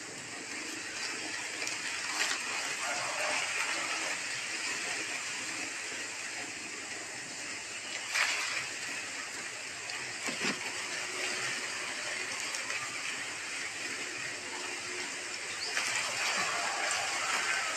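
A steady hiss of background noise, with a few brief louder rustles, the clearest about eight seconds in.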